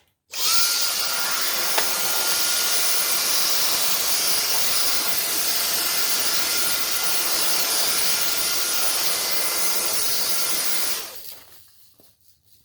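A small vacuum cleaner switches on and runs steadily with a high whine, then switches off about eleven seconds in and winds down.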